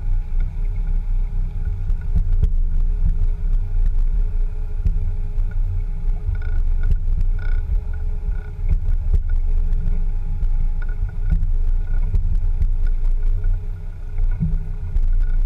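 Land Rover Discovery 2 driving over a rough dirt field, heard close to its rear wheel: a loud, muffled low rumble of the running engine and tyres on the rutted ground, with a few small knocks.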